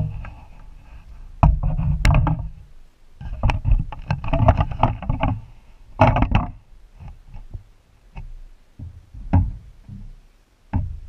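Irregular knocks and thumps on a small boat, with rustling handling noise close to the microphone.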